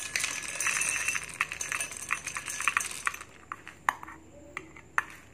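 Roasted split peanuts pouring into a stainless steel mixer-grinder jar, a dense rattle of nuts striking the steel that stops about three seconds in. A few single clicks follow.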